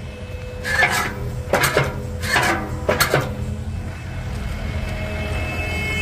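Kubota KX080 excavator's diesel engine running steadily, with four metallic clanks and scrapes in the first half as the bucket shifts and comes loose from the hydraulic quick coupler.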